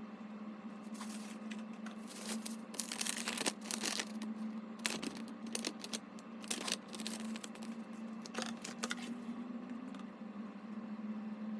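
Crinkling and rustling of packaging being handled, in irregular bursts for several seconds, over a steady low hum.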